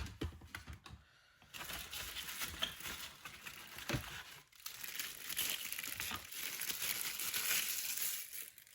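Plastic packaging crinkling and rustling as it is handled and pulled off a trimmer charging stand, with a knock at the start and another about four seconds in.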